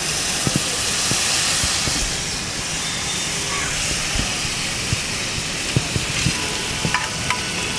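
Water poured onto a hot street-food griddle around frying egg masala, hissing and sizzling steadily as it flashes to steam. The hiss is strongest in the first few seconds and then eases a little.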